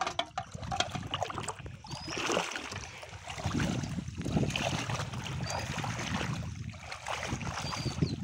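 Water sloshing and splashing around legs wading through a shallow pond, rising and falling with each stride.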